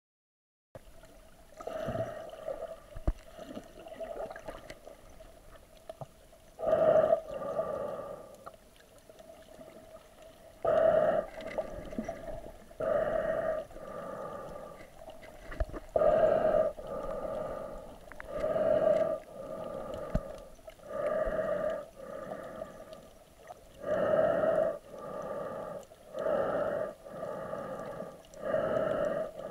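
A swimmer moving through the sea, heard underwater: muffled rushes of water every two to three seconds, each ringing at the same middle pitch.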